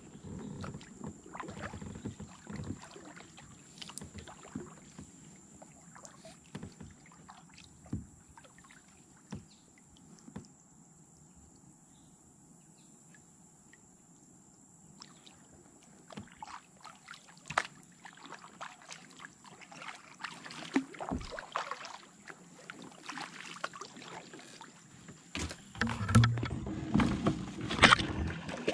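Kayak paddling: paddle blades dipping into and dripping on still water, with scattered light knocks and splashes. A quieter spell in the middle, then louder splashes and knocks near the end.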